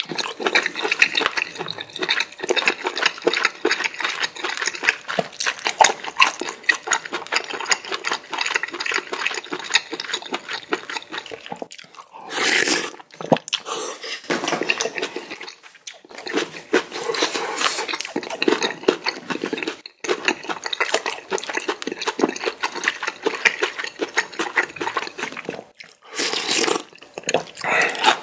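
Close-miked eating of spicy ramen noodles in broth: continuous wet chewing and mouth clicks, with two longer slurps, one about a third of the way in and one near the end.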